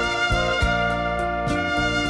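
Instrumental background music with held horn-like melody notes over a steady beat.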